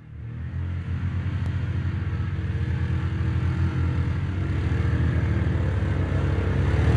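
Quad bike (ATV) engine running under throttle as it drives over soft ground, a low, rapidly pulsing engine note that grows steadily louder as it approaches.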